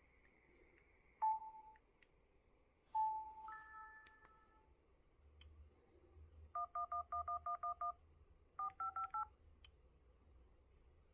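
Samsung Galaxy A5 (2016) playing short system sound effects through its speaker: a single short tone, a brief chime, then a quick run of about nine dual-tone keypad beeps followed by four beeps stepping up in pitch. Sharp clicks, like taps on the phone, fall between them.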